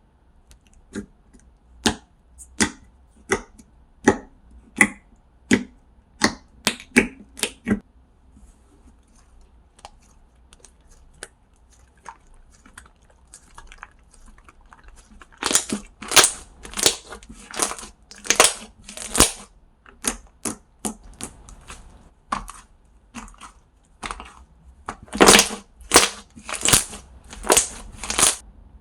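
Handmade slime being played with by hand: a run of sharp clicky pops about one a second, then, after a quieter spell, groups of longer crackling squishes.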